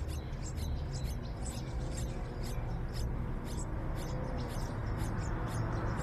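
Yellow-vented bulbul nestlings begging at feeding, short high-pitched cheeps repeated about twice a second, over a low steady background rumble.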